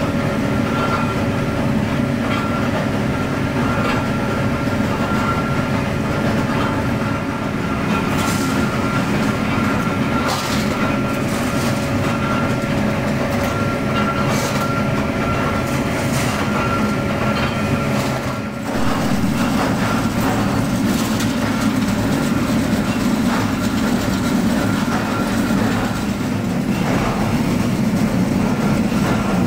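Steady din of factory machinery running, with a constant whine over the rumble and a few faint clanks. The noise dips briefly about two-thirds of the way through and then carries on.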